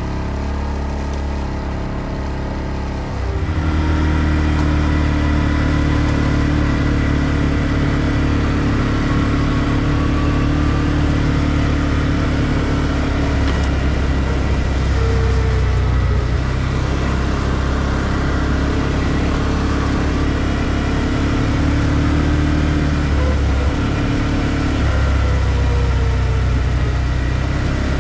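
ODES 650 ATV engine running under way on a dirt track. It gets louder about three seconds in, then runs steadily with small rises and falls in pitch.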